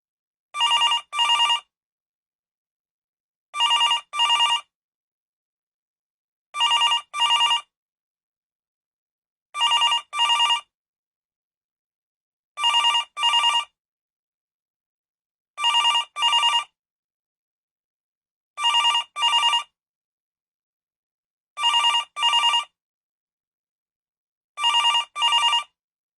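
Telephone ringing in a double-ring pattern: two short rings, then a pause of about two seconds, repeating steadily nine times.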